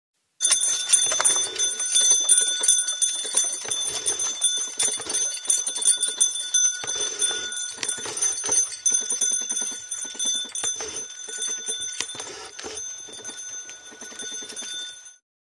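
Horse-drawn sleigh's bells jingling in a steady shaking rhythm, fading toward the end.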